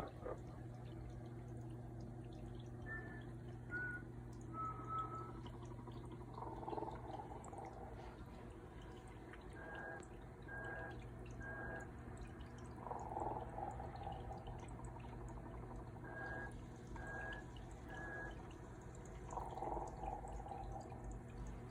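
Santa Claus snoring with a whistle: three rasping snores about six and a half seconds apart, with a run of three short high whistles between each snore and the next, over a steady low hum.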